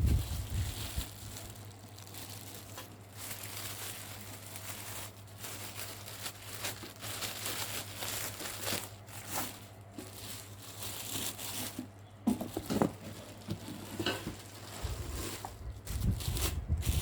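Plastic packaging crinkling and rustling as it is handled, in irregular bursts with scattered small knocks, over a steady low hum.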